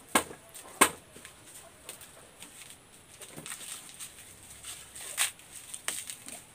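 Dried corn being husked and shelled by hand: a few sharp, irregular knocks of cobs, the loudest about a second in and another about five seconds in, with dry husks rustling between.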